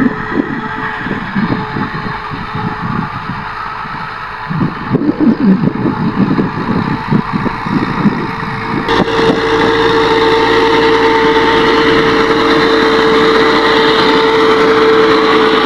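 NH Dabang 85 tractor engine working under load while pulling a disc harrow. From about nine seconds in it is closer and louder, running steadily with a high whine over the engine note. The owner complains that the tractor's rear end makes a lot of noise.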